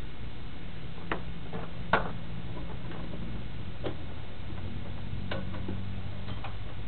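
Small paintball marker parts being handled, making a few separate light clicks and taps, the loudest about two seconds in, over a steady low hum.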